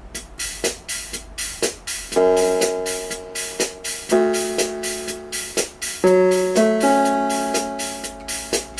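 Yamaha CP11 keyboard's built-in rhythm machine playing a steady drum beat. From about two seconds in, sustained keyboard chords are held over it, changing every second or two.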